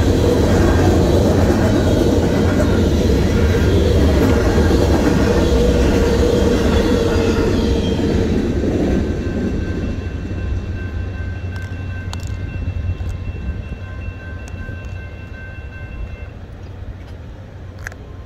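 Freight train cars rolling past, a loud steady rumble of wheels on rail that fades after about nine seconds as the train clears. Then the grade crossing's warning bell rings on in a steady repeating tone and stops about sixteen seconds in.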